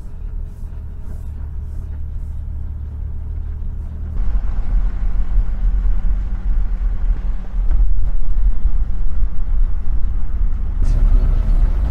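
4x4 camper truck driving along a dirt track: a steady low engine and road rumble that gets louder and rougher about four seconds in and again just before eight seconds.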